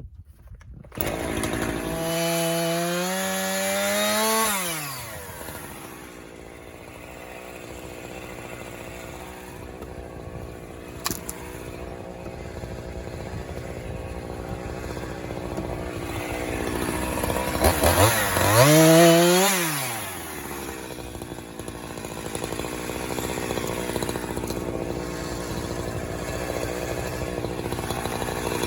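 Chainsaw cutting wood. It starts up about a second in and revs up high, then drops back after a few seconds and runs at a lower steady pitch. It revs high again about two-thirds of the way through and once more at the very end.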